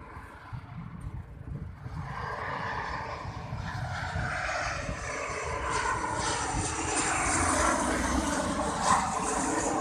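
Lion Air Boeing 737-8GP jet airliner on final approach with its landing gear down, engine noise building steadily louder as it nears overhead. A low wind rumble on the microphone sits underneath.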